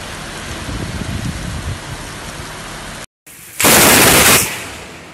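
Heavy rain pouring steadily. After an abrupt cut about three seconds in comes a loud, sudden crash of thunder lasting about a second, then fading.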